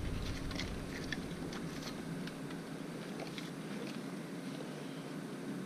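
Scattered small clicks and light rattles from hands working loose an engine's wiring harness and connectors, over a steady low hum.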